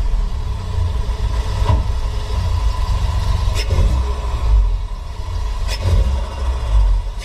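Audi S3 8V's turbocharged 2.0-litre four-cylinder engine running with a low exhaust rumble, broken three times, about every two seconds, by a short burst of turbo flutter on throttle lift-off before the revs climb again.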